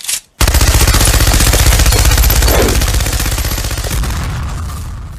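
Belt-fed machine gun firing a long continuous burst of very rapid shots, which fades off near the end, after a brief first burst right at the start.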